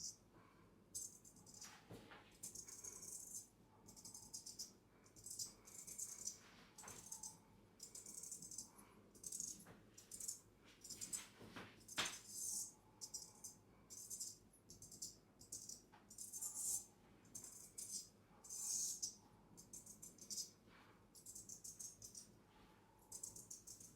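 Straight razor making quick, light scraping strokes, close to the microphone, in irregular runs of several strokes a second with the odd sharper click.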